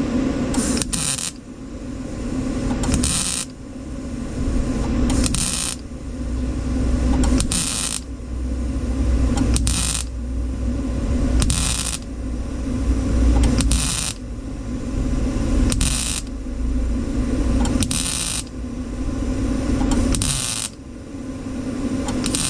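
Welder laying a row of small tack welds on thin truck-body sheet metal: about eleven short bursts, roughly one every two seconds, over a steady hum.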